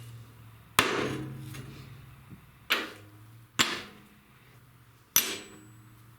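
Four sharp knocks, each ringing briefly, over a low steady hum.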